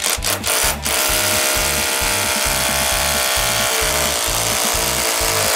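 Cordless hammer drill boring into brick: a few short trigger pulses, then a steady run, its pitch sagging slightly about three and a half seconds in. Background music with a steady beat runs underneath.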